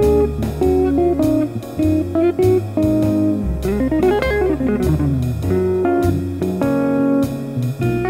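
Farida FA-16MP hollow-body archtop electric guitar played clean through an amp, picking bluesy single-note lines, with a quick run of notes climbing and falling back about halfway through.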